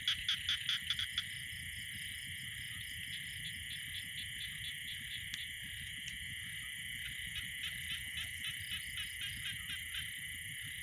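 Night-time chorus of frogs and insects in a wet field: a steady high trilling throughout, with a louder rapid run of pulsed calls, several a second, in the first second and another near the end.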